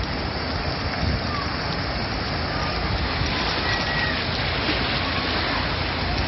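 Steady rush of heavy rain and flowing floodwater, with water surging around a pickup truck wading through the flooded street.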